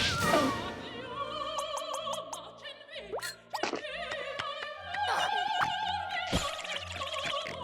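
Operatic-style singing with a wide vibrato on long held notes, over music with short plucked or clicking notes. The sound drops off briefly about three and a half seconds in.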